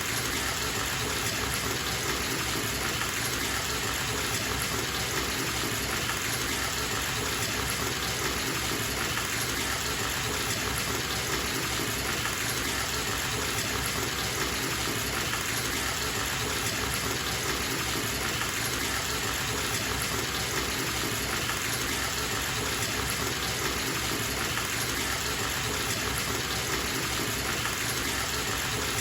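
Bathtub tap running steadily, water gushing into the tub as it fills: an even, unchanging rush.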